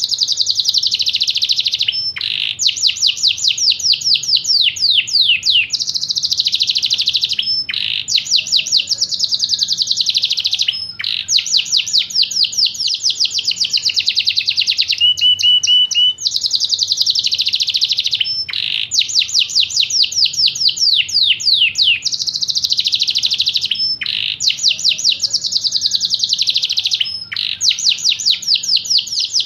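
Yorkshire canary singing a loud, continuous song of rapid trills and rolls, broken by short pauses. The same sequence of phrases comes round again about every eight seconds.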